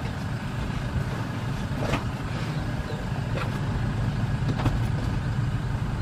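Steady low rumble of an idling vehicle engine, with three faint clicks.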